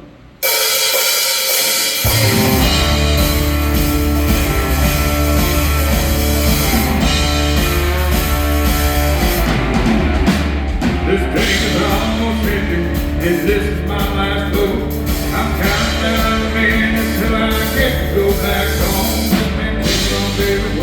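A band playing the instrumental opening of a country-rock song, with a drum kit; the music starts about half a second in and the bass comes in about two seconds in.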